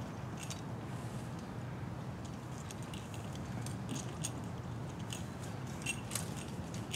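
Scattered light clicks and jingles of metal climbing hardware on an arborist's harness as a throw line is handled, a few sharper clinks near the end, over a steady low background rumble.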